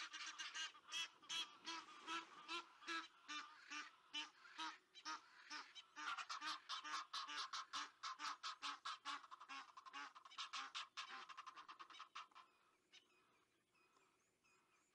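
Egyptian geese honking in a rapid, unbroken series of harsh calls, about three or four a second, breaking off about twelve seconds in. Faint high bird chirps follow.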